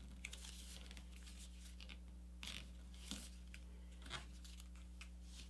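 Faint rustling and crinkling of a sheet of printer paper being folded and creased by hand, with a few soft crackles a second or so apart over a low steady hum.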